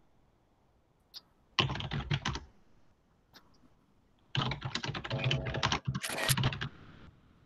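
Typing on a computer keyboard: a short burst of rapid keystrokes about a second and a half in, then a longer run from about four and a half seconds to nearly seven.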